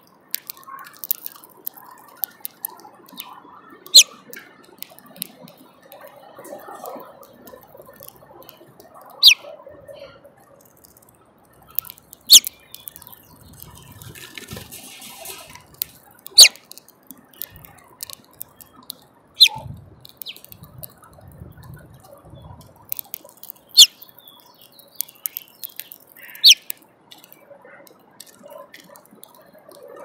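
House finches pecking and cracking seed in a plastic window feeder: sharp clicks and taps of beaks on seed and tray, a loud one every few seconds among fainter ticks.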